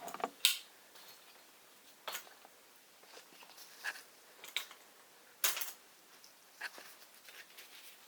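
Handling noise: a few light clicks and knocks, about six of them spaced a second or so apart, with quiet in between.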